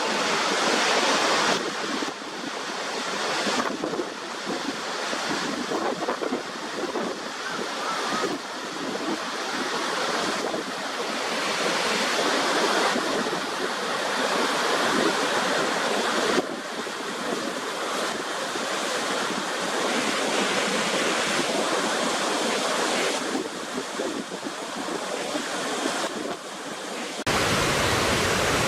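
Rushing water of a waterfall: a loud, steady roar of noise that swells and dips, changing abruptly several times, and becomes a steadier, fuller rush near the end.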